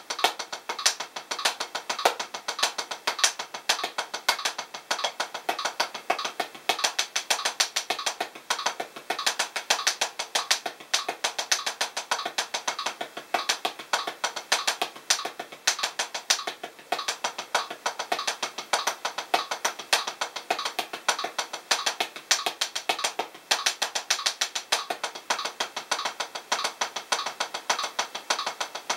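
Los Cabos 7A hickory drumsticks playing single paradiddles (RLRR LRLL) on a Drumeo P4 practice pad in steady sixteenth notes at 100 bpm: a fast, even stream of stick taps on the pad.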